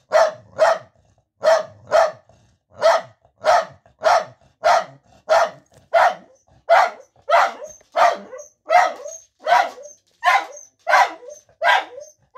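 Corgi barking over and over in a steady rhythm, about one and a half sharp barks a second, at visitors.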